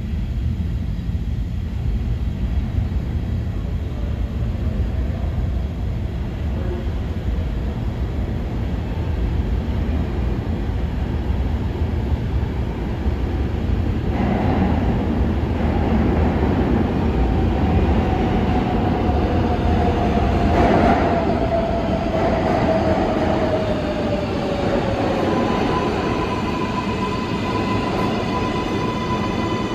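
New York City subway train, an R142/R142A, rumbling through the station. About halfway through a whine comes in and falls slowly in pitch, and near the end a steady high squeal sets in.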